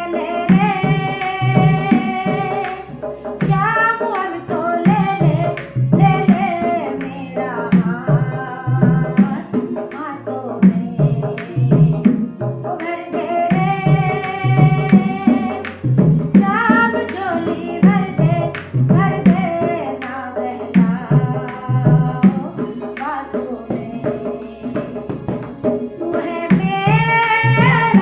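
A woman singing an Indian song over music, with percussion keeping a steady beat.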